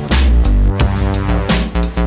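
Loud electronic background music with heavy bass and a steady beat.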